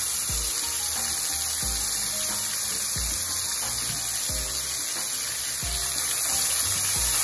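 Hot oil and cumin seeds sizzling in a pan as a wet ginger-garlic-green-chilli paste is scraped and poured in. Background music with a steady beat, about one beat every second and a bit, plays under it.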